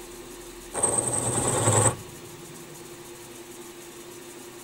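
Milling machine spindle running with a boring head, a steady hum. About a second in, the boring tool cuts into the hole for about a second: a loud scraping with a high whine over it. Then it drops back to the hum of the running spindle.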